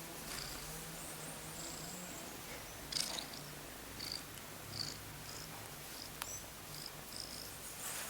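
A domestic cat purring steadily, with a brief rustle about three seconds in.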